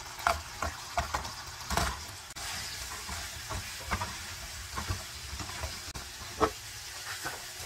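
Hot-sauce and butter glaze sizzling steadily in a frying pan as fried chicken wings are tipped in and tossed with a spatula, with frequent light knocks and scrapes of the spatula and wings against the pan.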